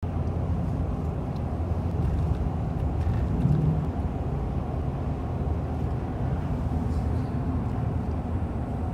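Vehicle driving, a steady low rumble of engine and road noise.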